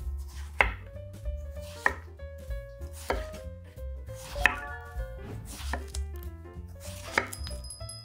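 Chef's knife slicing a zucchini into rounds on a wooden cutting board: a sharp knock each time the blade cuts through and hits the board, six strokes about a second and a quarter apart.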